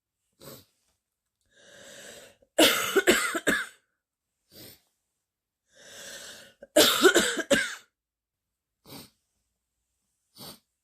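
A girl with a bad chest cold coughing a deep, barking cough. Two fits of several coughs each come about four seconds apart, and each follows a noisy breath in. Short, faint breaths fall between the fits.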